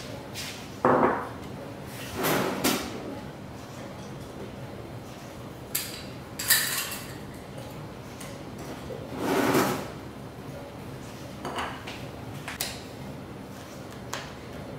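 Kitchen handling noises: a series of short knocks, thuds and clatters, about eight in all. The loudest is a sharp knock about a second in, and one longer noise of about half a second comes past the middle.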